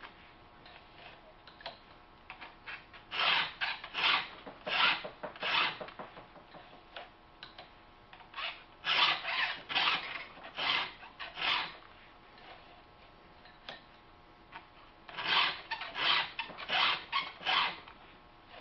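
Hand file strokes across the cutting teeth of a Husqvarna chainsaw chain while it is being sharpened: three sets of about four quick strokes, one set per tooth, with quieter handling in between as the file moves to the next tooth.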